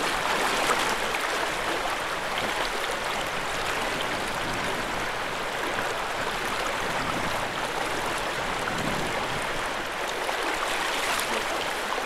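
Steady rushing of a swift river's current, an even wash of flowing water.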